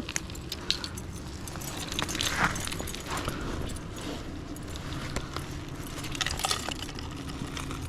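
Light metallic clinking and jingling, scattered small clicks, as a metal fish stringer's clips and chain are handled to string a freshly caught trout.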